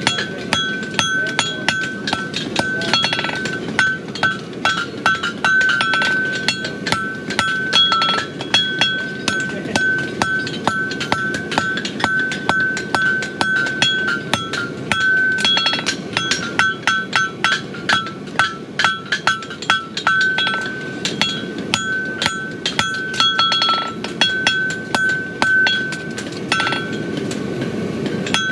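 Farrier's hammer striking a red-hot steel horseshoe on an anvil: a long run of sharp blows, each with a bright ringing anvil tone, with a few short pauses between runs.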